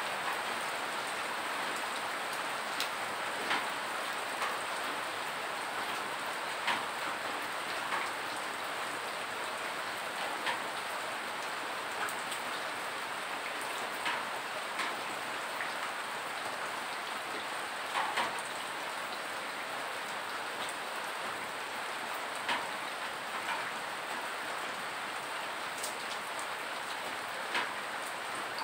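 Steady rain falling, with single drips of rainwater striking sharply every second or two at irregular times, dripping into plastic basins set out on the floor.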